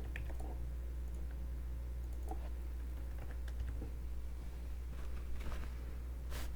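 Scattered light clicks of a computer mouse and keyboard being worked over a steady low hum, with a few stronger clicks near the end.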